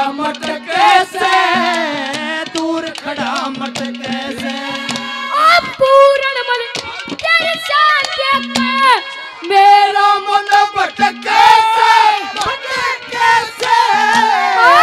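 A boy singing a Haryanvi ragni into a microphone in long, wavering, ornamented phrases, over live instrumental accompaniment with steady held low notes and drum strokes.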